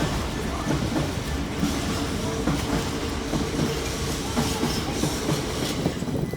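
Freight train hauled by a Class 66 diesel locomotive rolling past, its wagon wheels clattering steadily over the rail joints. A faint steady whine sounds through the middle.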